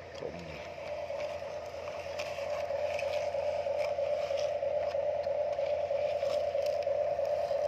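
Plastic toy dump truck pushed by hand over sand, its wheels scraping and clicking on the grit, over a steady hum that slowly grows louder.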